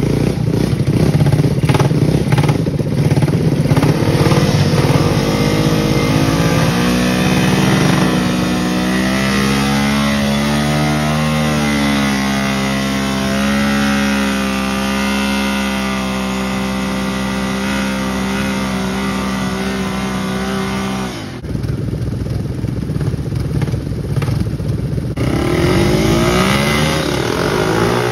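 Quad ATV engines revving hard in deep mud, the pitch climbing and then held high for several seconds before breaking off abruptly; revving picks up again near the end.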